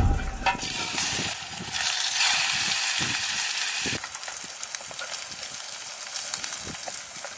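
Chicken patties sizzling and crackling as they fry in a pan, louder for the first few seconds and softer from about four seconds in.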